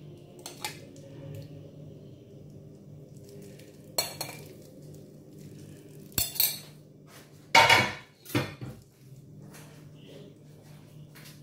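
Kitchen clatter: a spoon and a glass bowl clink against a pan several times, the loudest pair about eight seconds in, over a steady low hum.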